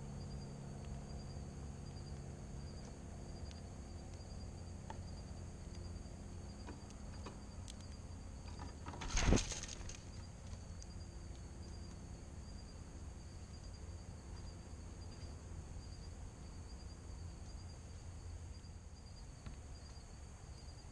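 Quiet dusk backyard ambience: a steady low hum and a faint, steady high trill. About nine seconds in comes one short, loud rustling flutter close to the camera as a male northern cardinal shifts across the seed board.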